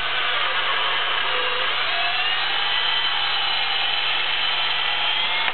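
Cordless drill running continuously, a slightly larger bit boring a clearance hole through a wooden frame piece so the screw can pass freely. A steady whir whose motor tone drifts a little in pitch, stopping suddenly near the end.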